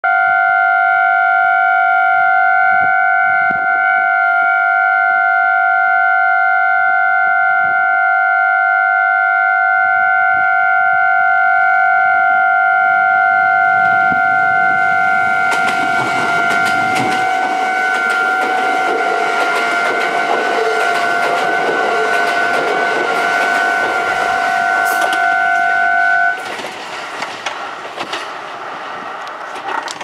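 Railway level-crossing alarm sounding one unbroken, steady tone, louder than usual and sounding like a Meitetsu station-yard crossing rather than its normal alarm. From about halfway a Kintetsu limited express of 22600 and 30000 series cars runs past with wheel clatter. The alarm cuts off suddenly a few seconds before the end while the train noise goes on.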